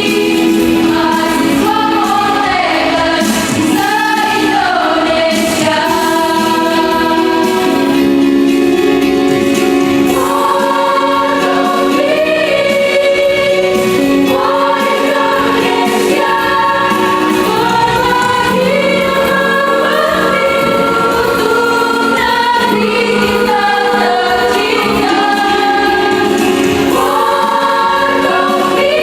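Mixed choir singing a jingle in Indonesian, with sustained held chords and moving melodic lines, continuous and steady in level.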